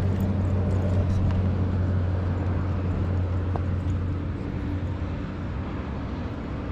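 Steady low engine hum, like vehicle traffic, with a couple of faint clicks; it fades slightly toward the end.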